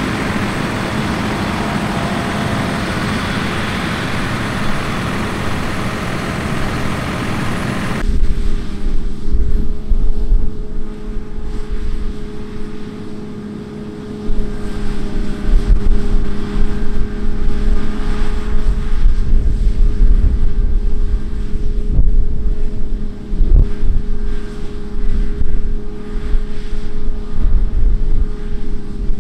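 Heavy farm machinery running steadily. About eight seconds in the sound changes abruptly to a steady engine hum with wind buffeting the microphone.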